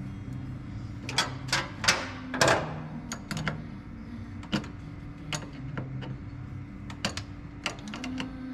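Hands working small wires and fittings at a truck battery terminal: a run of sharp clicks and short crinkly rustles, thickest around the first third, over quiet background music.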